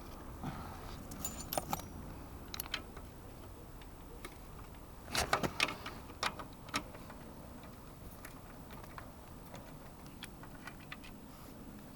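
Metal spanners and small metal parts clinking and clicking in scattered taps. The loudest cluster comes about five seconds in, with lighter ticks later on.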